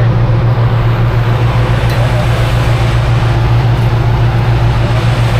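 Docked fast ferry's diesel engines running at idle, a loud, steady low hum.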